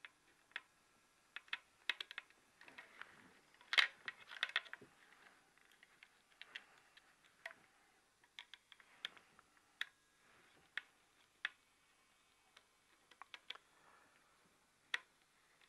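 Small irregular clicks and scrapes of a screwdriver tightening wires into the screw terminal block of a garage-door safety photocell's plastic housing. The loudest click comes about four seconds in.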